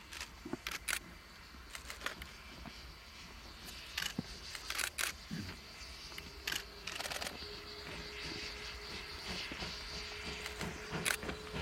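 Steam locomotive working a train in the distance, its exhaust growing louder as it approaches, with scattered sharp clicks that are the loudest sounds.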